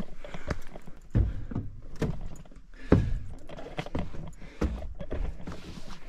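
A hiker's footsteps on a rocky dirt trail: uneven, dull thuds about once a second.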